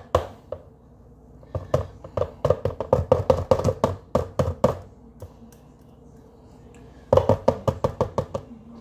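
Quick runs of knocks, about four or five a second, as a dough-coated mixer beater is rapped against the rim of a plastic tub to shake off cookie dough. There is one long run and a shorter one near the end.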